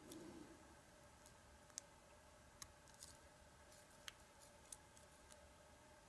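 Faint, light metallic clicks of a steel lock pick and tension wrench working the pins inside an American Lock 1100 padlock, about ten of them at irregular intervals.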